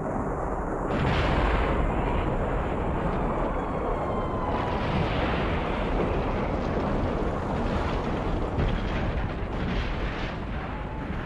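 Dense rumble of explosions and gunfire that starts about a second in and runs on, with sharp cracks scattered through it.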